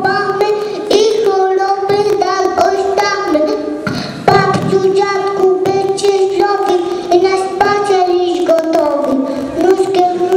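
Young children singing a song, a melody of held notes.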